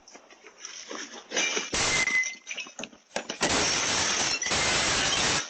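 Glass being smashed: scattered clinks and tinkles, then a run of loud, sustained crashes of shattering glass in the second half.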